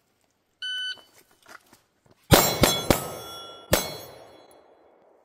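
A shot timer's start beep, then four pistol shots: three quick shots about 0.3 s apart and a fourth nearly a second later. The shots are followed by a metallic ring that fades out.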